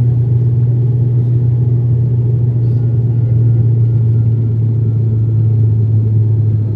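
Cabin noise of an IndiGo ATR 72 turboprop airliner in its climb after takeoff: the propellers and engines make a steady, loud low drone with a deep hum, heard from inside the cabin beside the propeller.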